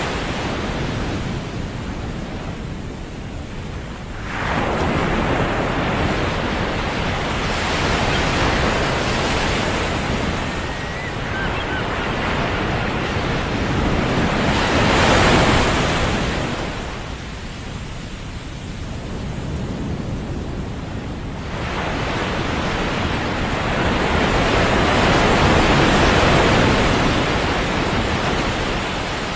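Ocean surf breaking on a beach: waves swelling and washing out one after another every few seconds, over a constant low rumble of wind.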